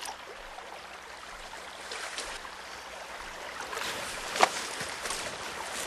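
Wet cloth being wrung out by hand: water trickling and dripping over a steady soft outdoor hiss, with one short splat about four and a half seconds in.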